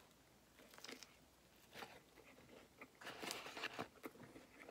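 A person chewing a mouthful of Big Mac close to the microphone: faint, irregular crunching and mouth noises, a little louder about three seconds in.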